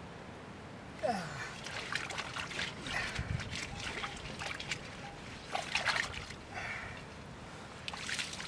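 Water splashing and trickling in a metal pot as it is swished and rinsed by hand, in irregular bursts starting about a second in.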